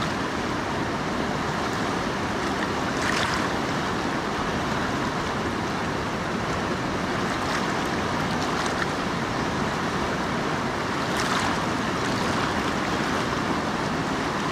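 Steady rush of a fast, rocky river's rapids, with two brief louder splashes about three and eleven seconds in.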